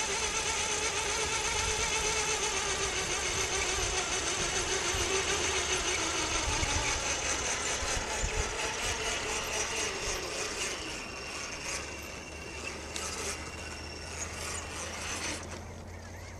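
Radio-controlled SCX10 scale crawler trucks driving: the electric motors and geared drivetrains whine steadily, and the sound drops off after about ten seconds.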